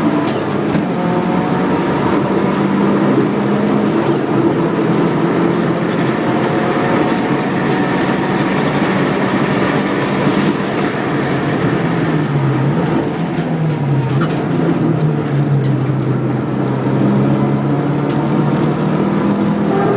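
Subaru WRX's turbocharged flat-four engine running continuously under way. The note holds steady, dips lower a couple of times about two-thirds through, then climbs again.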